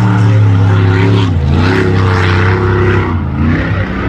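Racing powerboat engines running hard at speed. The steady engine note dips and comes back up twice, about a second in and again near the end.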